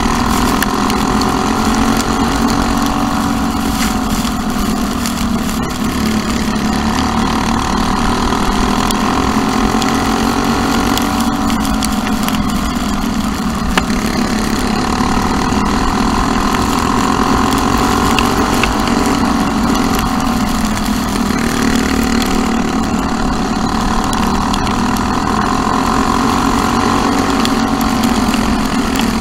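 Briggs & Stratton LO206 four-stroke kart engine heard onboard at race pace on a dirt oval. Its pitch swells up and drops back every several seconds as the kart accelerates down the straights and lifts for the turns, lap after lap.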